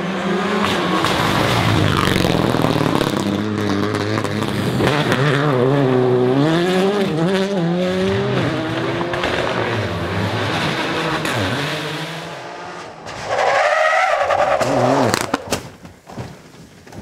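Rally car engines revving hard through gear changes, the pitch climbing and dropping again and again as the cars pass at speed on a gravel stage. Near the end comes a short, higher-pitched squeal.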